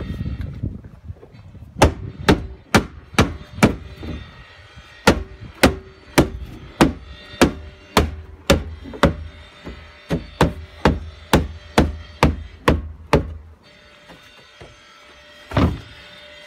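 Hammer blows driving mushroom pins into the joints of a plastic floating dock: a run of sharp strikes, about two to three a second, in several bursts with short pauses, then one last blow near the end.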